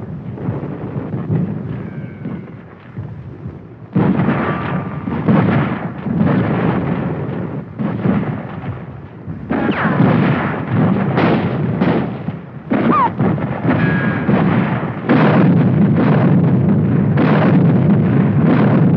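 Battle sounds of artillery and gunfire: booming blasts one after another, often a second or less apart, each trailing off in a low rumble. From about three-quarters of the way in they merge into a dense, continuous barrage.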